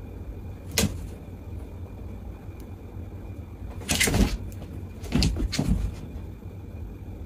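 Over a low steady hum, a few knocks and scuffles: the loudest about four seconds in and another about a second later, as a pet rabbit rears up and jumps at a cat sitting on a wooden box.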